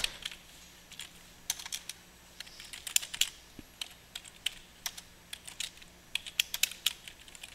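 Typing on a computer keyboard: irregular keystroke clicks in short runs with pauses between them.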